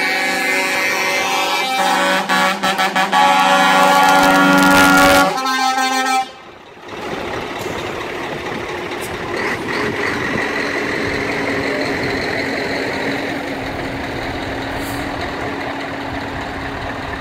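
Truck air horns sounding a chord of several tones, with a run of short toots about two seconds in and a longer, louder blast that cuts off about six seconds in. After that, heavy trucks' diesel engines run steadily as the trucks roll slowly past.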